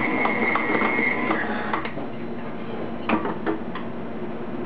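KitchenAid stand mixer running at medium speed, beating churro dough: a steady motor hum with fast, even ticking from the beater that stops about a second in, then a few separate clicks.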